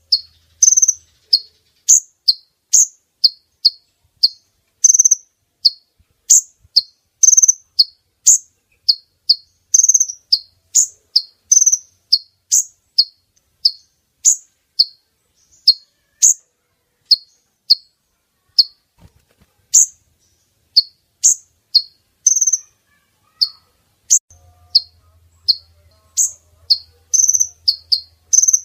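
Female sunbird (kolibri ninja) calling in a lure recording: an unbroken run of short, sharp, high chirps, about two a second. A faint low hum comes in near the end.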